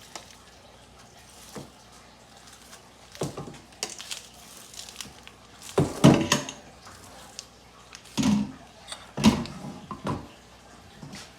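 Dishes being handled in a kitchen: a handful of separate knocks and clunks, the loudest about six seconds in.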